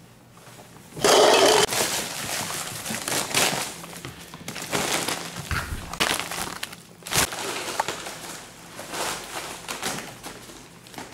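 Plastic cups knocked over by a ferret with a loud clatter about a second in. This is followed by scattered clicks, knocks and rustling as the ferret scrambles among the cups and through crinkly foil ducting.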